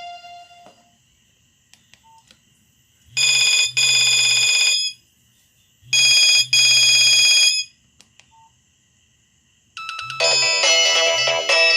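Nokia 6085 mobile phone playing ringtones through its loudspeaker. A tune fades out, then a trilling telephone-bell ring sounds twice, about a second and a half each, and about ten seconds in a new melody starts. A low pulsing buzz runs with the rings and the melody.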